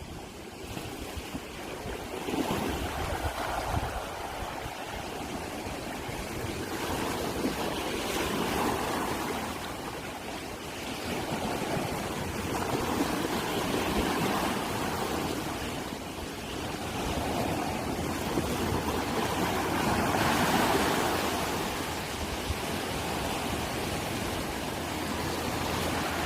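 Rushing water, swelling and easing every few seconds.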